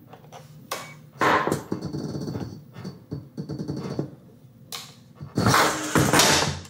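Beetleweight combat robot's weapon motor spinning up its blade in two loud surges, with the robot jerking and knocking about in a test box. The weapon is wired backwards, so it spins the wrong way.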